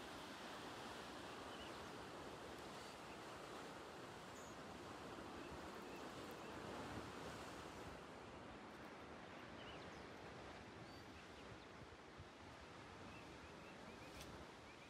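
Faint, steady wash of sea surf breaking on rocky cliffs below, with a few faint high chirps scattered through.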